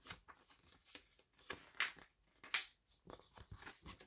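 Paper pages of a picture book being handled and turned: a run of short, irregular rustles and swishes, the loudest two just under two seconds and about two and a half seconds in.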